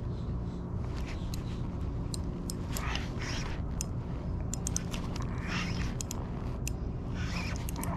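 Handling noise from a spinning reel and fishing gear on a kayak: sharp clicks and short scraping rushes about three seconds in, about halfway through and near the end, over a steady low background rumble.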